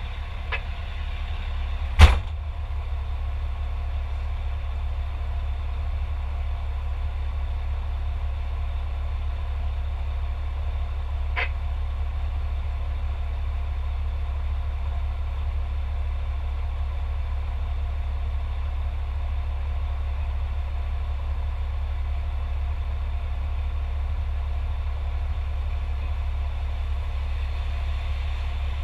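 Fire engine's diesel engine idling steadily, heard from inside the cab as a low rumble. About two seconds in there is a single sharp bang, and a fainter click comes near the middle.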